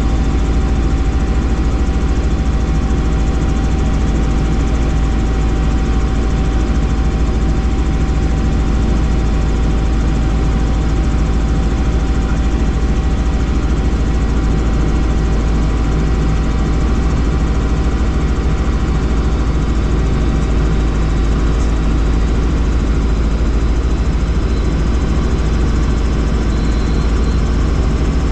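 Helicopter in flight: steady, unchanging engine and rotor noise, loud and low, with a thin constant whine over it.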